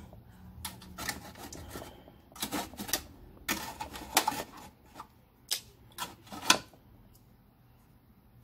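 Dish and cutlery handling: a run of irregular light clicks and taps from a bowl and fork, the loudest about six and a half seconds in.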